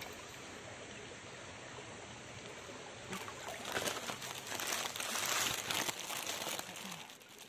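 Shallow stream water trickling, with wet hands splashing and rustling in the water; the splashing and handling noise grows louder from about three seconds in and dies down near the end.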